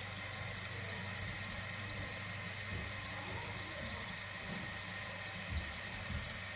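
Toilet tank refilling through a new Fluidmaster fill valve: a steady rush of water, with a couple of faint knocks near the end.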